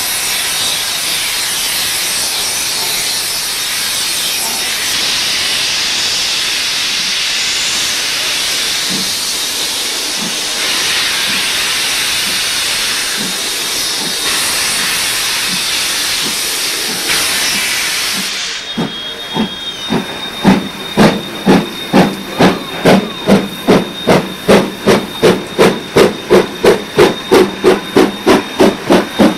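NZR KA class 4-8-4 steam locomotive (KA 945) hissing loudly and steadily with steam blowing from its cylinders. About two-thirds of the way in it starts away with its train: sharp exhaust chuffs from the chimney, quickening to about three a second as it gets under way.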